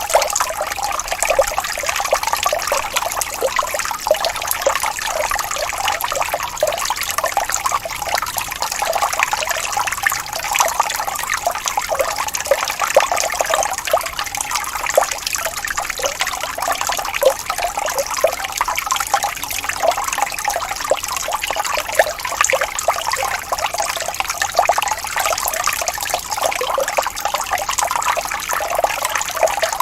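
Small waterfall: water trickling and splashing steadily over rocks, a busy, unbroken babble with no low rumble.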